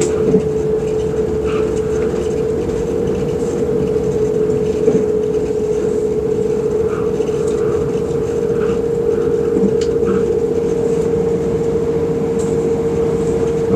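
Running noise heard from inside the carriage of a moving electric train: a steady rumble with a constant, unchanging whine held at one pitch.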